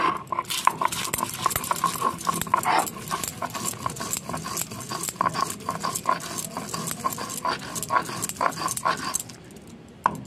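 Poppy seeds and green chillies being ground to a paste on a grinding stone: quick, repeated scraping and knocking strokes that stop about nine seconds in.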